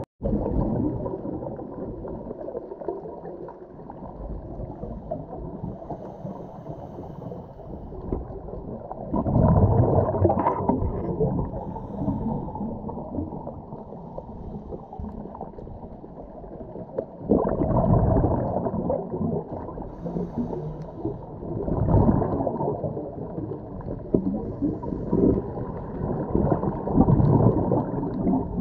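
Scuba diver's exhaled bubbles from the regulator, heard underwater and muffled: surges of bubbling every few seconds over a steady low rumble.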